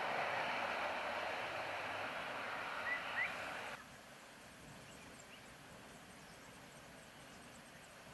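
A KC-130's four turboprop engines at high power on its takeoff roll: a loud, even rush that slowly fades as the aircraft moves away and cuts off abruptly about four seconds in. After the cut comes a faint outdoor background with small high chirps.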